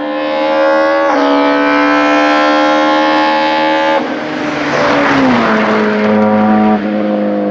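BMW 318i E36 STW touring car at full throttle, its engine note climbing steadily with a quick upshift about a second in. About four seconds in the note breaks up and drops as the car passes by, then holds a lower steady note.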